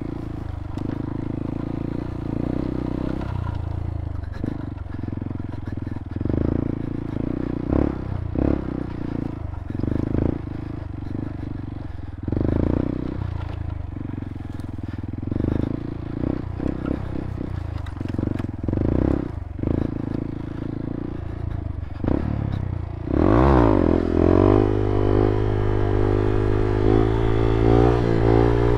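Motorcycle engine running at low speed with repeated knocks and clatter, as if over rough ground. About 23 s in, the engine revs up with a wavering rise in pitch and then holds a higher, steady note.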